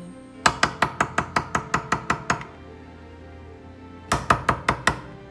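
A utensil knocked rapidly against a glass mixing bowl to get the last brownie batter out: about a dozen sharp knocks at roughly five a second, then after a pause a shorter run of about six.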